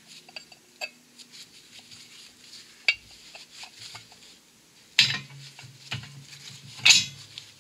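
Metal clinks and clanks as a cast hub carrier and hand tools are handled and set on the steel plates of a hydraulic shop press, with sharper knocks about three, five and seven seconds in.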